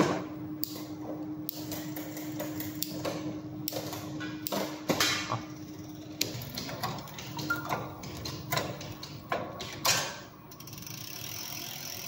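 Irregular mechanical clicking and knocking of tools and parts during electric bike assembly, including ratchet-like clicks. A steady low hum runs beneath, drops out briefly past the middle and stops near the end, where the clicks also stop.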